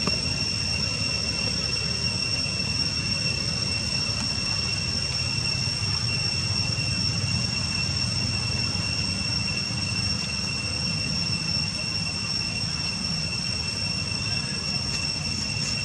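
A steady background drone: a constant high-pitched whine, with a fainter whine an octave above it, over even low noise. It holds unchanged throughout.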